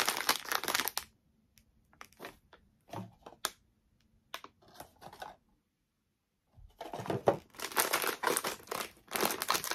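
Paper and foil wrapping being crinkled and torn open by hand: a second of dense crinkling, a few scattered crinkles, a short quiet gap, then steady crinkling and tearing for the last three seconds.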